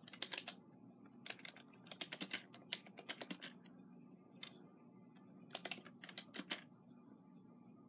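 Typing on a computer keyboard: short bursts of key clicks with brief pauses between them.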